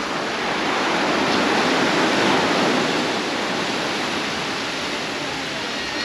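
Sea surf: a wave breaking and washing up the beach, swelling to its loudest about two seconds in and then easing off.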